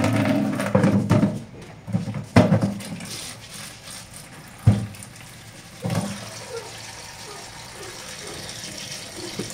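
Kitchen tap running into a plastic basin in the sink, the water hiss growing fuller after about six seconds. Several dull knocks as fruit is dropped into the basin.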